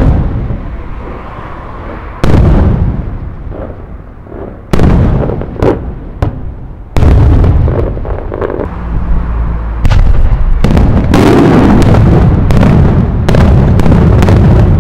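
Aerial firework shells bursting overhead: a loud bang every two to three seconds, then from about ten seconds in a dense run of bangs close together.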